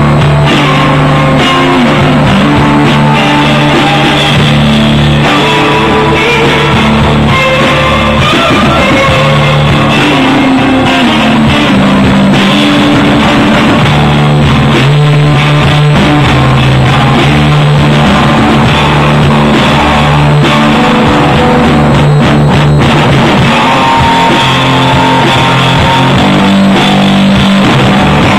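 Loud live rock band: electric guitars strummed over a drum kit.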